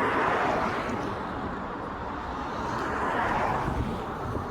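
Road traffic noise: passing vehicles make a steady wash of sound that swells at the start and again about three seconds in.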